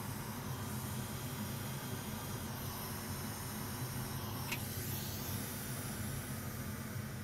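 Steady background hiss with a low hum underneath, with a faint short squeak about four and a half seconds in.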